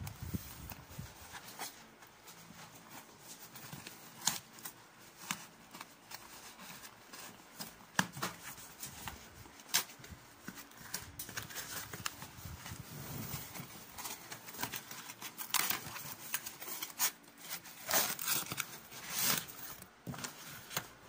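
Tightly sealed plastic packaging being picked at and torn open by hand: irregular crinkling and crackling with scattered sharp clicks.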